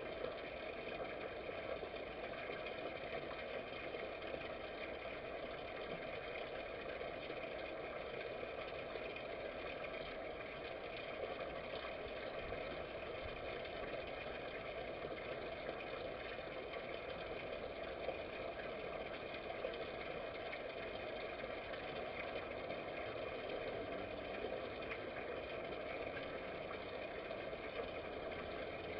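A steady mechanical hum made up of several held tones, unchanging in level.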